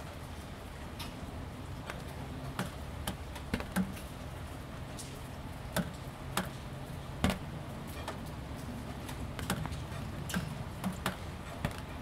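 Gentle rain, with scattered drops tapping sharply on wet corrugated plastic panels, about one tap a second at irregular intervals.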